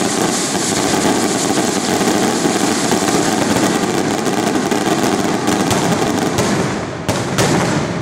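Many fireworks going off at once: a loud, dense, continuous crackling hiss, with a couple of sharp bangs about seven seconds in.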